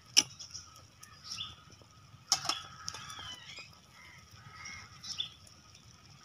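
Sharp clinks of a steel plate lid and a metal spoon against a clay cooking pot, one just after the start and a louder-ringing one about two seconds in, with birds calling faintly in the background.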